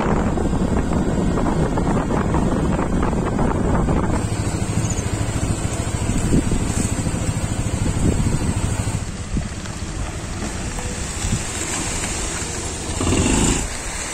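Motor scooter running along a road, with wind rushing over the microphone. The rushing noise drops away about nine seconds in, leaving a quieter steady background, with a brief louder swell near the end.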